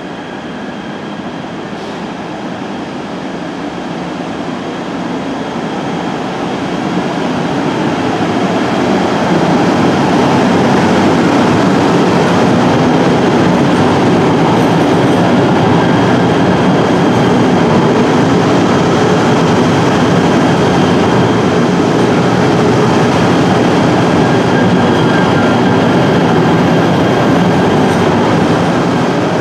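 KTM Komuter Class 92 electric multiple unit rolling into the platform and past at close range: wheels on rail and running gear, with a faint steady whine over the noise. It grows louder over the first ten seconds and then holds steady as the cars go by.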